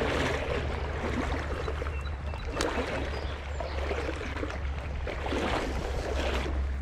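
Shallow creek water rushing and splashing close by, with a steady low rumble underneath and one sharp click about two and a half seconds in.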